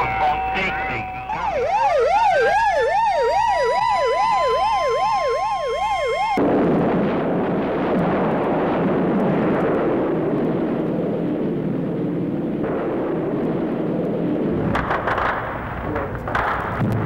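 A siren wails in a fast up-and-down yelp, about two and a half cycles a second, after a brief steady tone. It cuts off suddenly about six seconds in and gives way to a steady rushing noise. A few sharp bangs come near the end.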